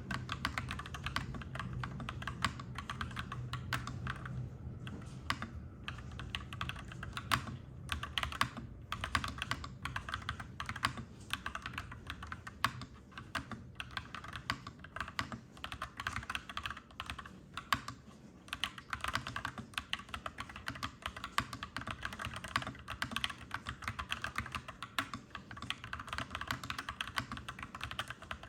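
Fast, continuous typing on a clacky mechanical keyboard, key clicks in quick runs with a few short pauses. A low rumble sits underneath, strongest in the first few seconds.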